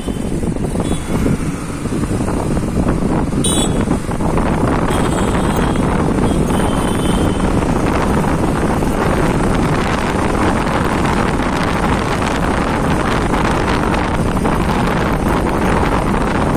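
Wind rushing over the microphone of a moving motorcycle, mixed with its engine and tyre noise, steady throughout.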